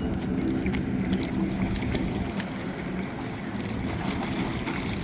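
Small boat under way on the water: a steady low hum over a noisy wash of water, with faint scattered clicks.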